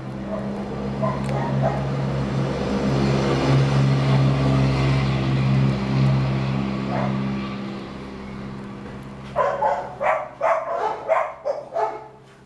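A dog barking, with a quick string of about seven or eight barks in the last few seconds, over a steady low mechanical hum.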